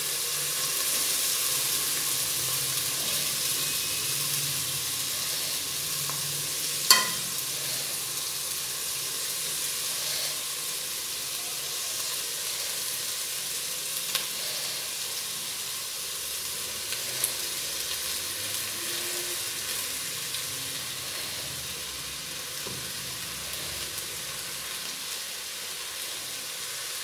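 Gravy sizzling in a hot aluminium pot as boiled basmati rice is spread over it with a slotted metal spatula, a steady hiss that slowly dies down as the rice covers the gravy. One sharp metallic clink of the spatula against the pot about seven seconds in, with a few lighter taps later.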